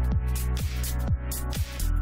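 Electronic dance music with a steady kick drum, about two beats a second, over a deep bass line.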